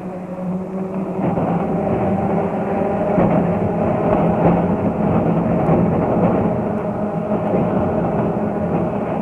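Electric tram running on rails: a steady rumble and rattle of wheels and body under a wavering motor whine, heard through an old recording that sounds dull.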